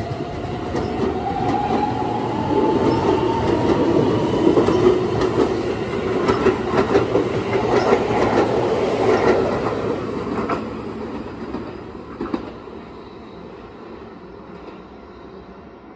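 Keihan 13000 series electric train pulling out of the station: its motor whine rises in pitch as it speeds up, and its wheels clatter over the rail joints. The sound fades away after about ten seconds as the train leaves.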